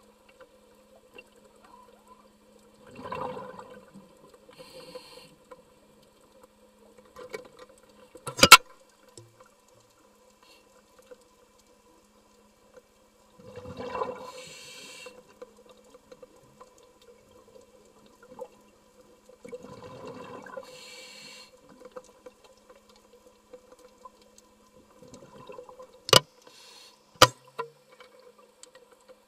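Scuba diver's regulator breathing underwater: three bursts of exhaled bubbles several seconds apart, each trailing off in a hiss, over a steady hum. Three sharp clicks, the loudest about a third of the way in and two close together near the end.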